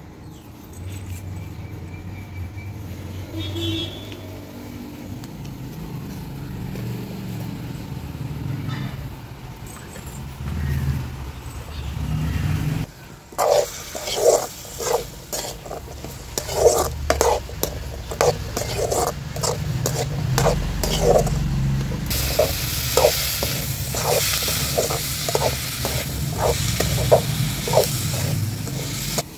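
A metal slotted spoon scraping and stirring small onions, tomatoes and curry leaves in oil in an aluminium pot over a wood fire, in repeated scrapes about one or two a second, with a frying sizzle that grows louder in the last part. The first half holds only a low rumble.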